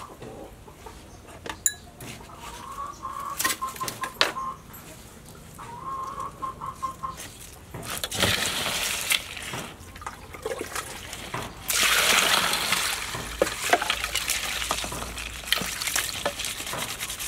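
Mud crabs being washed by hand in a basin of water: splashing and rubbing, heaviest from about 8 seconds in and again in the last five seconds, with scattered clicks of shell and ice. A chicken calls twice in the background in the first half.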